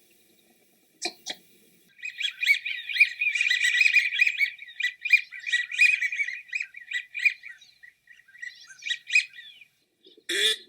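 Birds chirping and twittering in a dense run of high, quick calls, then thinning out. Near the end a harsher, lower quacking call starts.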